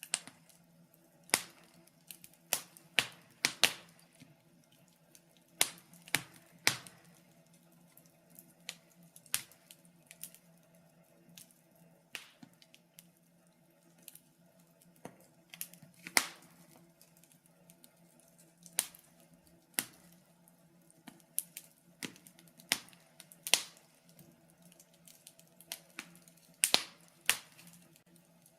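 Wood fire in a fireplace crackling, with irregular sharp pops every second or so, some much louder than others, over a faint steady low hum.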